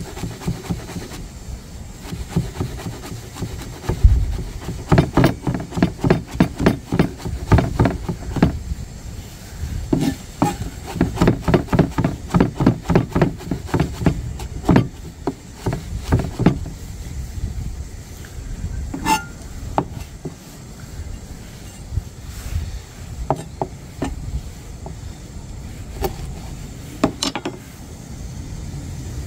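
Chef's knife chopping fresh coriander on a plastic cutting board: fast runs of sharp knocks, about three a second, in several bursts, then a few scattered single taps in the second half.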